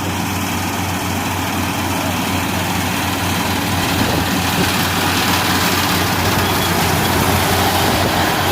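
Combine harvester running steadily: a low engine hum under a broad, even machine noise.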